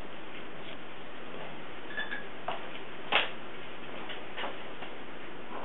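A few faint clicks and light knocks of the removed handle, screws and drill being handled, the sharpest about three seconds in, over a steady background hiss.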